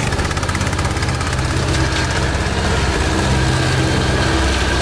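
Poulan automatic lawn tractor's engine running steadily under load as it mows through tall grass, with small rises and falls in pitch.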